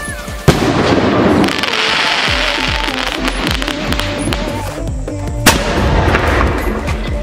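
Music with firework sound effects: a sharp bang about half a second in, a hissing crackle over the next couple of seconds, and a second bang about five and a half seconds in.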